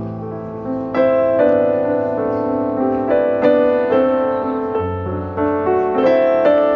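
Background piano music: slow, gentle chords with notes struck about once a second and left to ring.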